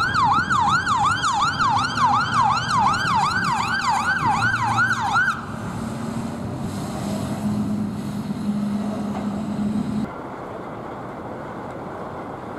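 Fire engine siren wailing in fast, even up-and-down sweeps, about three a second, that cut off suddenly about five seconds in. A low steady rumble follows, ending abruptly near the end.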